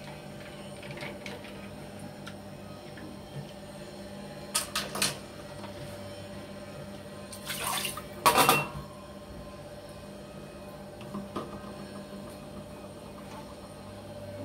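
Kitchenware handled on a counter: three light clinks about five seconds in, then a short rush of noise and a loud knock around eight seconds, over a steady low electrical hum.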